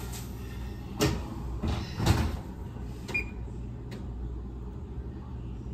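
Kitchen oven door being opened and shut to put in a foil-covered pan: a knock about a second in, a louder bang about two seconds in, and a lighter knock with a short metallic ring near three seconds.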